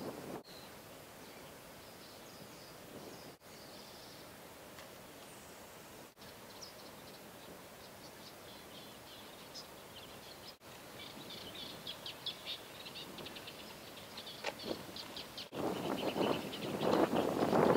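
Small birds chirping and twittering over a faint steady outdoor hiss, the chirps growing busier about halfway through. A louder rushing noise comes in over the last two seconds.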